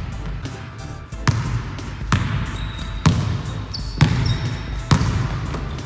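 A basketball bounced on a hardwood gym floor, about five bounces roughly a second apart, each echoing in the hall.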